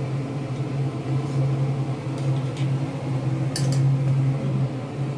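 A steady low machine hum, like a motor or fan, under a few light clinks and scrapes of a steel ladle against a steel kadai and small steel bowl as a sweet is scooped out, between about two and four seconds in.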